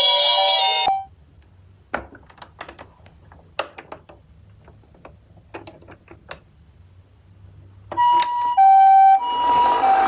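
Several toy ambulances' electronic sirens sound over one another and cut off about a second in, followed by scattered light clicks and knocks of the plastic toys being handled. About eight seconds in, a toy's electronic tones start. Near the end a toy ambulance siren begins alternating between two tones, the Japanese ambulance 'pee-poh' pattern, over a hiss.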